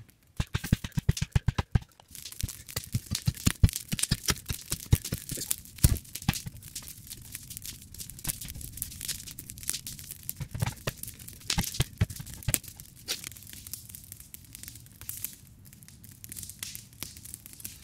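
Clamshell post-hole digger jabbing and scraping into a hard clay layer: repeated crunching strikes and gritty scraping of soil, with a quick run of regular strikes in the first two seconds.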